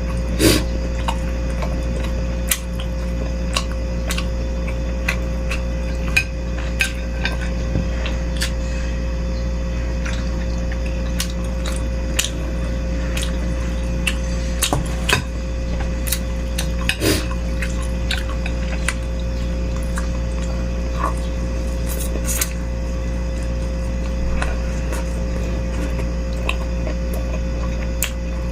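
Close-up eating sounds of beef-rib meatball soup: a spoon clicking and clinking against the bowl many times, with wet slurping of broth. A steady low hum runs underneath.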